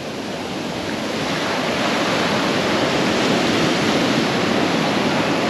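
Sea waves washing onto a beach: a steady rushing of surf that swells louder over the first couple of seconds and then holds.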